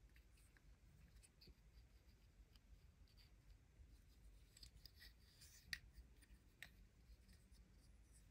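Near silence with faint small clicks and rubbing of plastic toy-figure parts being handled. The clicks come in a small flurry about halfway through, the sharpest just past the middle.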